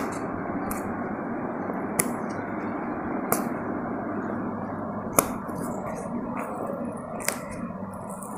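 Fingers tapping and picking at the tape tab of a cardboard keyboard box: a few short, sharp clicks every second or two over a steady background hiss.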